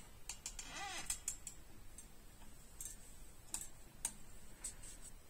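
Faint, irregular clicks and taps of hands handling a paper drawing and the camera mount, clustered in the first second and a half and then sparser, over quiet room hiss.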